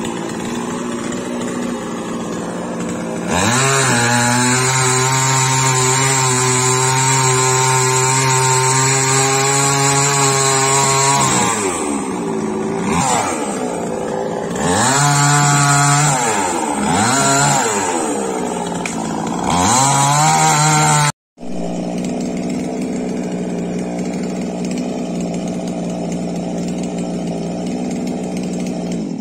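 Chainsaw running at low speed, then revved up about three seconds in and held at full speed while it cuts through the branches of a felled tree. It is then revved up and eased off several times, drops out for an instant about two-thirds through, and runs on steadily to the end.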